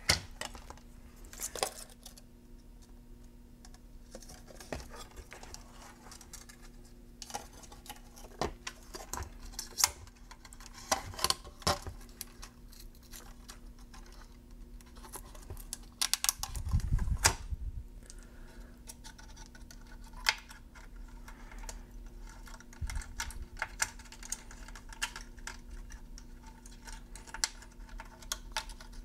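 Scattered small clicks and taps of hands handling capacitors and wires on a metal speaker crossover board, with a denser burst of clatter about seventeen seconds in. A faint steady hum runs underneath.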